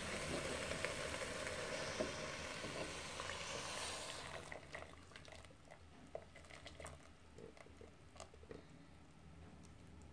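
A steady rushing noise for about four seconds, then quieter scattered drips and splashes as a blended mixture is poured from a blender jug into an aluminium pot of cut sweet potatoes.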